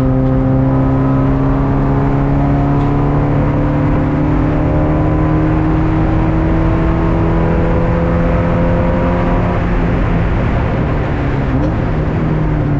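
Race car engine heard from inside the stripped cockpit, pulling hard with its pitch climbing slowly for about nine seconds, then falling away and picking up again near the end. Under it runs a steady hiss of tyres and water spray on the rain-soaked track.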